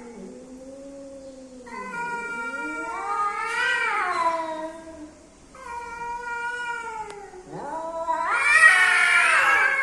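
A male and a female cat caterwauling, the yowling of cats in courtship: long, drawn-out wails that rise and fall in pitch, with a short lull midway and the loudest, highest-pitched yowl near the end.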